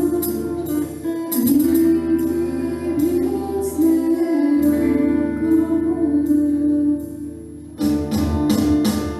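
A school orchestra playing, with sustained instrument notes over repeated percussion strikes. It drops quieter about seven seconds in, then the whole band comes back in loudly just before the end.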